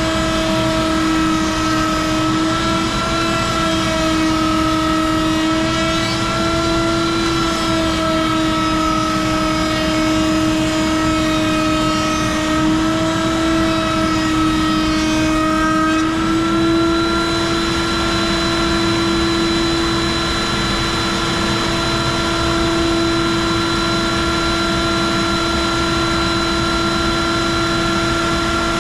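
Router table with a chamfer bit running at high speed over a dust collector's rush, a steady high whine. The pitch dips and wavers slightly as boards are fed past the cutter for about the first sixteen seconds, then holds steady as the router spins free.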